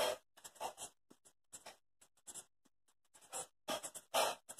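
Marker pen writing on a whiteboard: a run of short strokes with brief pauses between, closer together and louder near the end.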